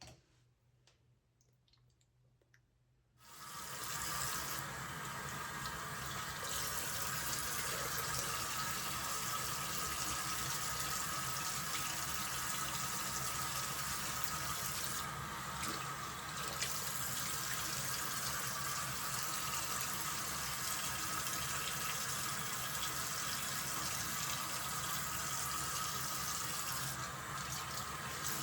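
A few faint clicks, then about three seconds in a tap is turned on and water runs steadily into a sink.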